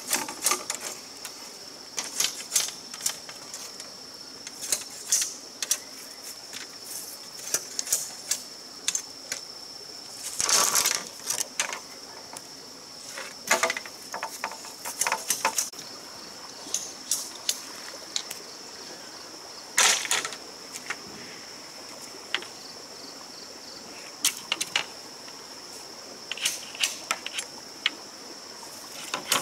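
A blade working a bamboo pole, trimming and splitting it: irregular clicks, knocks and short scrapes, with louder cracks about ten and twenty seconds in. A steady high insect drone runs behind.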